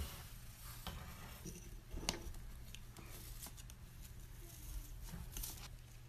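Faint, scattered clicks and scratches from a white-bellied caique working its beak against a painted baseboard.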